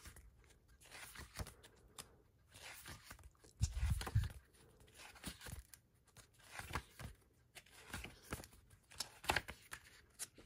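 Pages of a glossy paper booklet being turned and handled, soft swishes and rustles of paper every second or so. A dull low thump about four seconds in.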